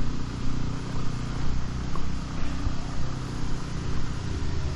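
Road traffic: a motor vehicle's engine running close by, a low steady hum.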